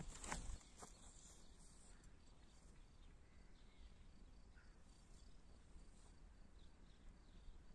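A short whoosh and thump in the first half-second as a discus-launch glider is whirled round and thrown by its wingtip. Then near silence: the glider flies without a sound, leaving only a faint low wind rumble on the microphone.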